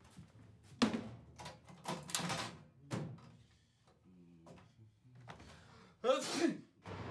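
A chest freezer being opened and rummaged through: a series of clunks and knocks with rustling between them, the loudest a cluster of knocks about six seconds in.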